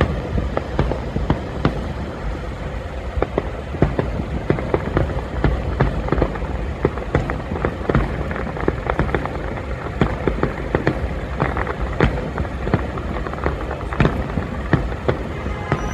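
Fireworks going off in quick, uneven succession, many sharp bangs and pops over a steady low rumble of street traffic.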